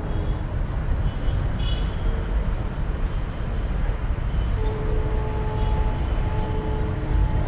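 Steady low outdoor rumble, with a faint hum that comes and goes over it.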